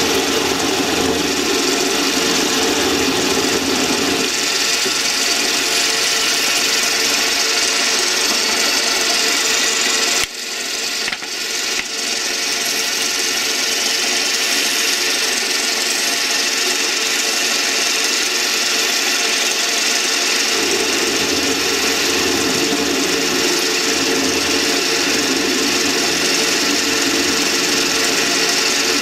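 South Bend 8K lathe running steadily while parting off a workpiece: continuous motor and gear noise with the cutting sound of the parting tool. The level drops suddenly about ten seconds in and builds back over a couple of seconds, and a heavier low hum comes and goes.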